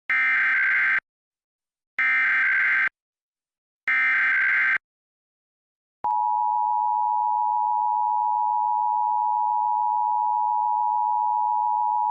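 Emergency Alert System header tones: three one-second bursts of warbling digital data, then about six seconds in the steady two-tone EAS attention signal (853 and 960 Hz together) starts and holds.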